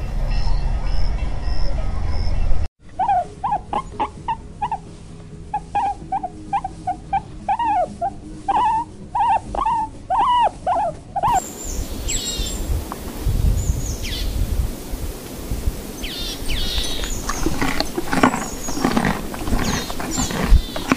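Barbary macaques calling: a run of short calls that rise and fall in pitch, about two a second, then after a cut, high-pitched squeals and chatter over rustling.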